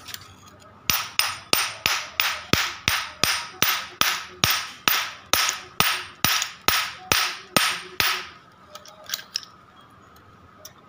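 Steady run of light hammer blows on the metal field-coil housing of a Tata Ace starter motor, about three a second, each with a short metallic ring; the blows start about a second in and stop about eight seconds in.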